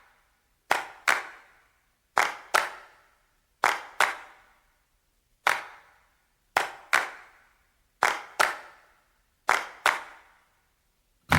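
Hand claps in a slow repeating pattern, mostly in pairs about a third of a second apart, each clap with a ringing echo tail; one single clap breaks the pattern about halfway through.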